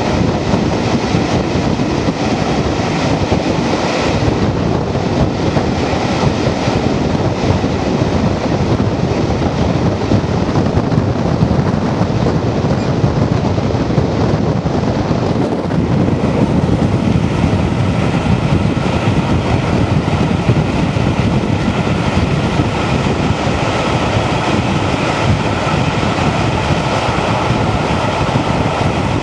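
Passenger train hauled by a Class 52 'Western' diesel-hydraulic locomotive running at speed, heard from an open carriage window: a steady rush of wheel, rail and wind noise.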